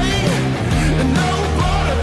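Rock music with guitar and a wavering melody line, steady and loud throughout.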